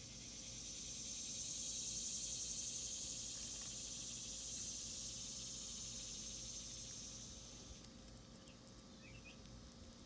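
A cicada singing: a high, even buzz that swells over the first couple of seconds, holds, then fades away about eight seconds in.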